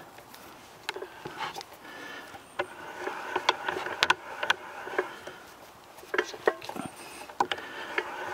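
Hand-cranked chainsaw chain rivet spinner being turned, with irregular metallic clicks and scraping as the spinner head rounds over the rivet of a master link.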